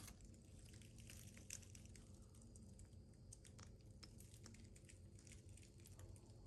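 Near silence: faint room tone with a low steady hum and a few scattered faint clicks.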